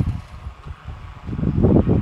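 Wind buffeting the microphone in uneven low gusts, strongest near the end.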